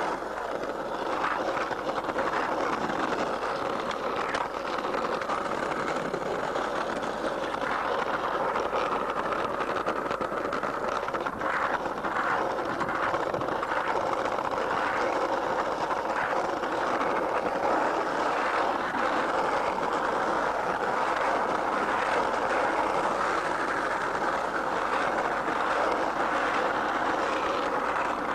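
Skateboard wheels rolling over concrete paving in a steady, unbroken rumble, with a few sharp clacks near the middle.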